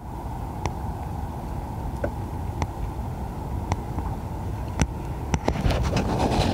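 Wind rumbling on the microphone of a camera on a kayak over choppy water, broken by a handful of sharp knocks, with a louder rushing hiss in the last second.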